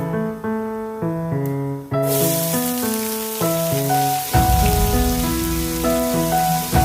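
Background piano music with a steady sizzling hiss of food frying in hot oil, which starts suddenly about two seconds in and carries on under the music.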